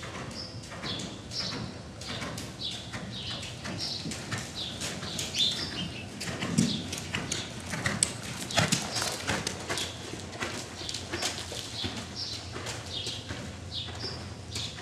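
Hoofbeats of a Hanoverian mare trotting on sand arena footing: a steady run of dull thuds, with a few louder knocks in the middle.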